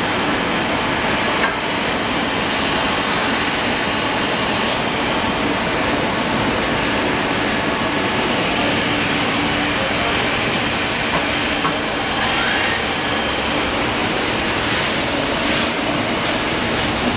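Citizen Cincom M20 CNC automatic lathe running: a steady mechanical noise with a faint low steady tone and a few light clicks.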